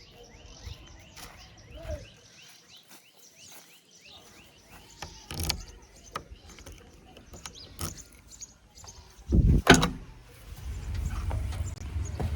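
Scattered clicks and knocks with small chirps, a loud thud about nine and a half seconds in, then a steady low engine rumble setting in near the end.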